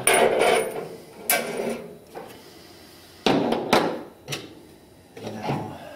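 A few sharp knocks and clatters of tools and hardware being handled on a 3D printer's metal frame, the loudest about three seconds in, with quiet gaps between them.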